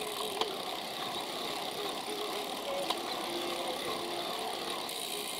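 Steady wind and road noise of a bicycle being ridden in a group along a city road, with traffic, picked up by a bike-mounted camera; a couple of short clicks, about half a second in and near the three-second mark.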